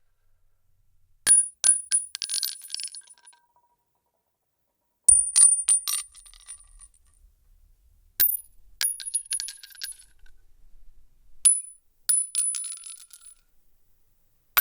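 Metal bullet shell casings dropped onto a hard surface, one after another every few seconds. Each drop lands with a sharp clink, then bounces and rattles a few times with a high metallic ring before settling.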